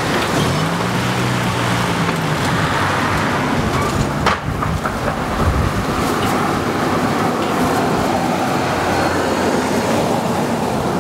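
Steady rushing noise with no distinct single event, and a faint low hum in the first few seconds.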